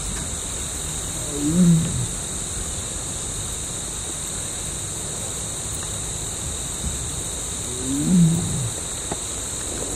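Male Bengal tiger roaring twice, about six seconds apart; each call is short and rises then falls in pitch. The tiger is calling for a mate.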